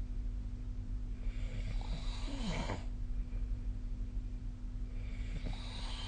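A sleeping person snoring: one snore about a second in, lasting under two seconds and ending in a falling pitched note, and the next one starting near the end. A steady low hum runs underneath.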